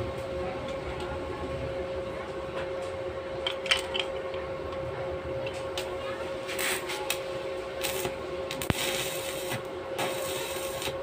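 Stick (shielded metal arc) welding: a few clicks and knocks over a steady hum, then just under nine seconds in the arc strikes with a sharp crack and runs as a crackling hiss, in short spells.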